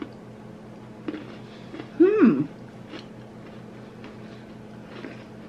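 People chewing shortbread sandwich creme cookies, with faint small crunching clicks. About two seconds in, one of them hums a short 'mm' of appreciation that rises and then falls in pitch.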